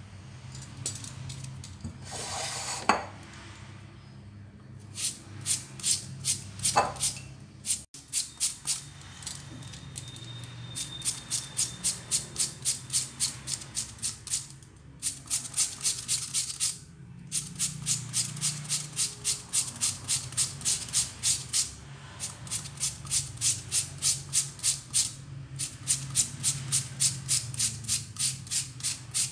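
Raw potato being shredded on a handheld plastic julienne grater: quick rasping strokes, about four a second, in runs of a few seconds with short pauses between.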